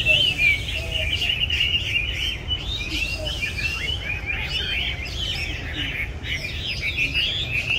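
Chinese hwamei (melodious laughingthrush) singing a continuous stream of rapid, varied whistled phrases.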